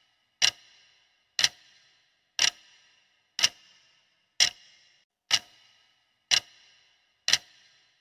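Clock-tick sound effect marking the seconds of a countdown timer: eight sharp ticks, one each second, each with a brief ringing tail.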